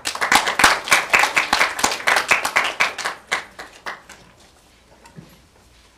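Audience applauding: a burst of separate hand claps that starts suddenly, thins out after about three seconds and dies away about four seconds in.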